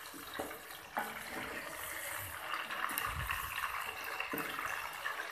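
Chicken pieces frying in hot oil in an aluminium karahi, a steady sizzling hiss, with a few short knocks as a wooden spoon scrapes and lifts the pieces against the pan.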